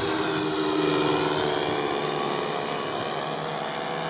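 Twin-engine propeller aircraft flying past, with a steady engine and propeller drone whose pitch wavers slightly.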